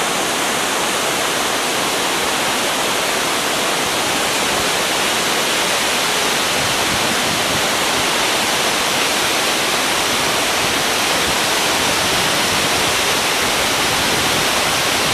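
Waterfall: falling water rushing steadily, a loud, even hiss with no breaks.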